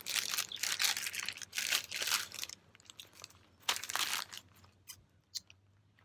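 Plastic snack packaging crinkling and tearing as it is handled, for about two and a half seconds, then a shorter rustle a little under four seconds in and a few faint clicks.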